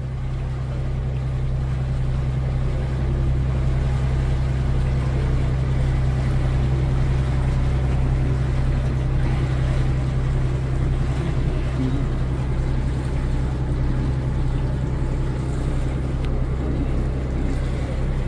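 Cruise boat's engine running with a steady low drone under the rush of water and wind, growing slightly louder in the first few seconds.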